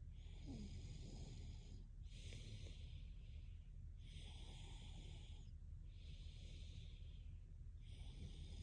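Faint, regular breathing of a sleeping young woman, each breath a soft wheezy hiss, coming about every two seconds, over a low steady hum.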